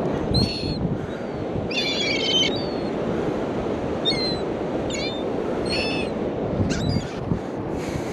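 Surf washing steadily on the beach, with about half a dozen short, high bird calls over it.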